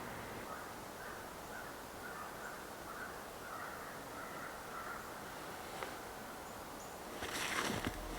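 A faint series of short bird calls over a steady outdoor hiss. About a second before the end, crunching footsteps in snow begin.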